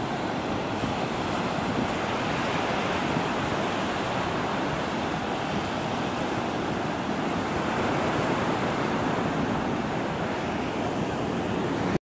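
Ocean surf breaking and washing up the beach, a steady rush of noise, with wind buffeting the microphone.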